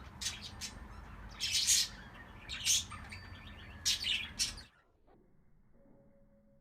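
Pet birds chirping in four short bursts of sharp, high calls over a low background noise; about two-thirds of the way through, the sound cuts off suddenly, leaving only a faint steady hum.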